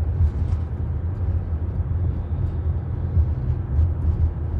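Steady low rumble inside a moving car's cabin: engine and tyre noise while driving.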